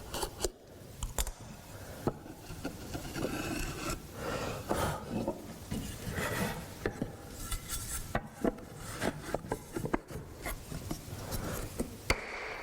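Hand tools working wood: short scraping and rasping strokes with scattered light clicks and taps.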